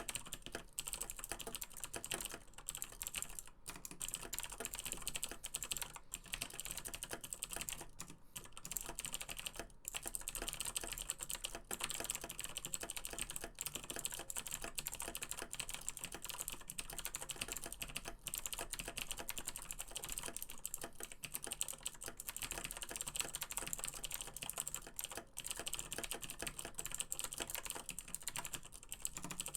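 Fast continuous typing on a Razer BlackWidow Chroma mechanical keyboard with clicky Razer Green switches: a dense, rapid stream of sharp, high-pitched key clicks with only brief pauses.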